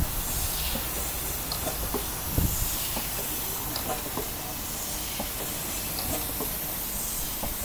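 Vertical steam engine with reversing gear running on compressed air: a steady hiss of escaping air with a few light mechanical clicks from the moving gear.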